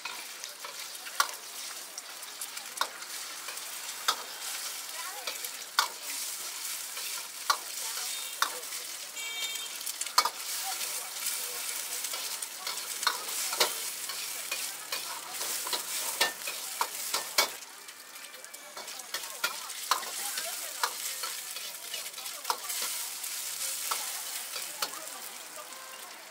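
Egg white and rice sizzling in hot oil in a wok, stirred with a steel ladle that scrapes and clanks sharply against the wok every second or two.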